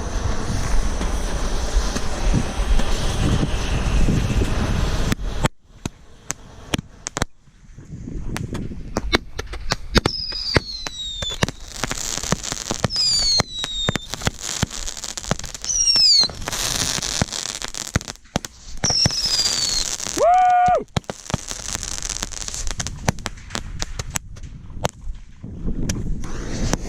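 Fireworks going off: a steady rushing hiss for about the first five seconds, then many sharp pops and crackles, with several high whistles that each fall in pitch.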